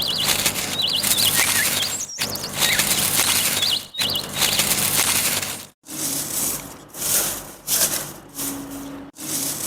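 Bird wings flapping in a rushing noise, with a few short high chirps in the first half and quicker bursts of flapping later.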